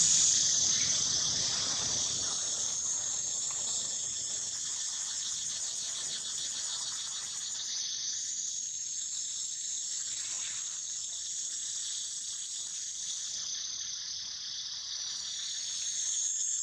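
Steady, high-pitched insect chorus, a dense rapid buzz. It is loudest in the first couple of seconds, eases off, and swells a little near the end.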